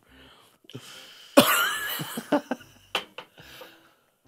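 A person coughing and spluttering after a sip of neat cherry brandy: a hoarse vocal cry about a second and a half in, then several short sharp coughs.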